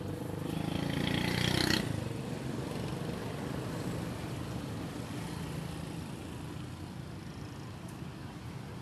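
Steady roadside traffic noise. In the first two seconds a louder rushing sound builds up, then cuts off abruptly.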